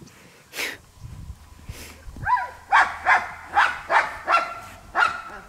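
Dog barking repeatedly in quick sharp barks, about two or three a second, starting a little over two seconds in. Before the barks there is a single sharp crack about half a second in.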